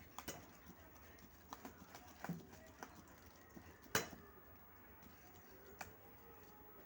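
A person eating noodles up close: scattered short clicks and smacks of chewing and utensils, with one sharper click about four seconds in.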